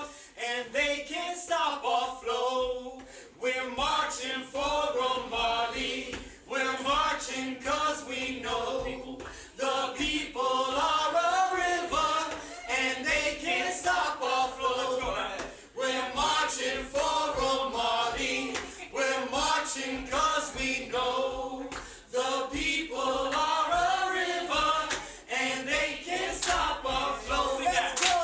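A group of voices singing and chanting a cappella in unison, in short phrases with brief breaks between them.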